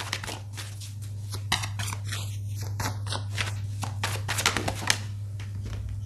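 Tarot cards being shuffled and handled: a dense run of quick soft clicks and rustles over a steady low hum.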